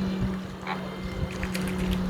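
A low, steady motor-like drone, with a few short calls from flamingos over it about a second in and near the end.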